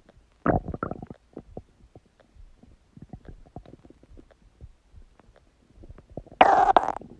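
Human stomach gurgling. There is a short bubbling gurgle about half a second in, then scattered soft pops and clicks. Near the end comes a loud, long gurgle with a squeal that glides up and down in pitch.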